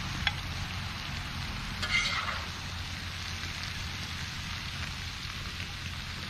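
Food sizzling as it cooks, a steady even hiss, with a short sharper sound about two seconds in.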